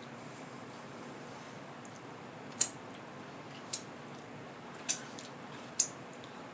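Four short, sharp clicks about a second apart over quiet room tone: small mouth and lip sounds while chewing food close to the microphone.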